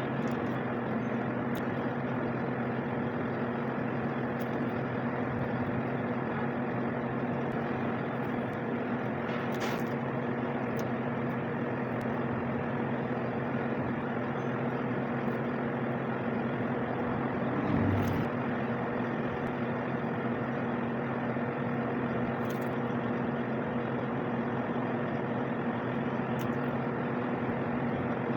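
Steady machine hum with a few faint clicks and one brief low thump partway through.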